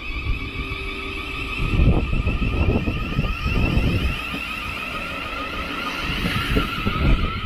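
Thameslink Class 700 electric multiple unit departing and gathering speed: its traction motors give a steady two-tone whine, over a low uneven rumble.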